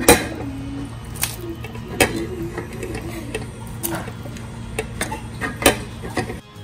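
Steel ladle clinking against a steel pot while stirring shredded chicken into the soup: irregular sharp clinks about once a second over a steady low hum.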